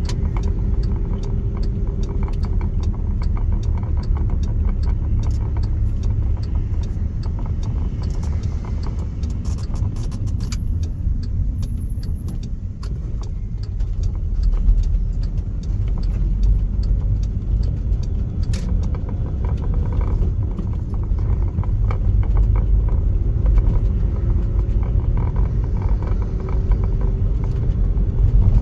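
Van driving on town roads, heard from inside the cabin: a steady low engine and road rumble. A faint engine whine rises and falls with speed at the start and again in the second half.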